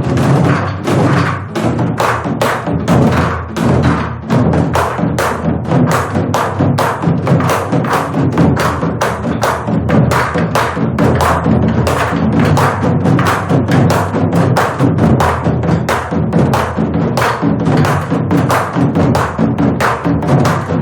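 Korean buk barrel drums struck with sticks in an even, driving beat during an ogomu five-drum dance, over sustained accompanying music.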